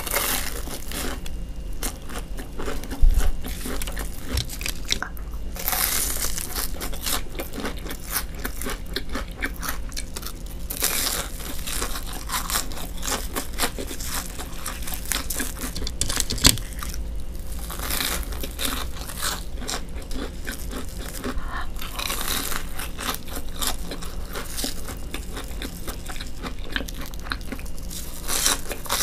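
Close-miked biting and chewing of deep-fried, breadcrumb-coated sticks: the crisp crust crunches with each bite, with sharper single crunches about three seconds in and again midway, between stretches of chewing.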